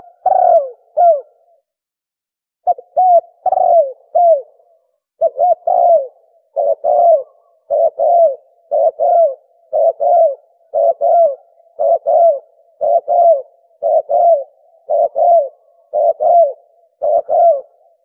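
Spotted dove (tekukur) cooing: a few irregular coo phrases at first, then a steady run of short two-note coos repeated about once a second, played as a hunting call to lure doves.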